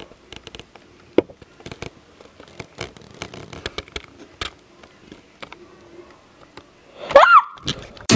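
Scattered light knocks, scrapes and rustling of handling in the dark, then near the end a girl's short loud cry that rises and falls in pitch.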